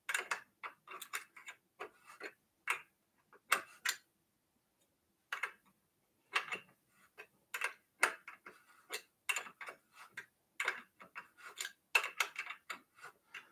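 Short, irregular metal clicks and taps of a small open-end wrench being worked around the ebike's front-wheel axle nuts as they are tightened, coming in uneven clusters.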